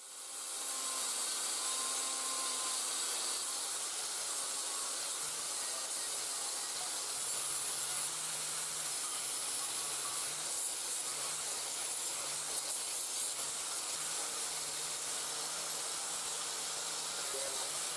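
Angle grinder with a wire brush spinning up at the very start, then scouring rust off a thin steel frame as a steady hiss.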